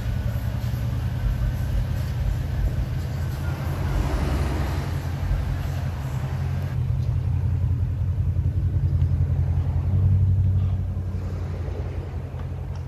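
Mercedes CL 550's V8 running steadily through an exhaust with the muffler removed and the catalytic converters and resonators still fitted, a deep low rumble. It swells a little louder about ten seconds in, then settles.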